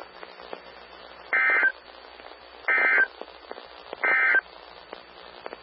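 Emergency Alert System end-of-message code on NOAA Weather Radio: three short bursts of digital data tones about a second and a half apart, over faint radio hiss. The bursts mark the end of the alert message.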